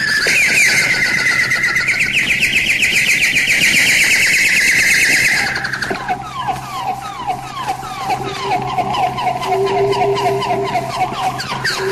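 Eerie bird-call sound effect: a rapid, high trill of chirps that about five seconds in drops to quieter, lower, falling chirps over a held note.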